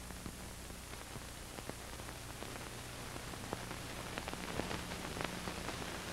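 Faint hiss and low hum with scattered crackles and pops, the background noise of an old, worn recording while its soundtrack is silent. The hum fades out about two-thirds of the way through, and the pops come more often near the end.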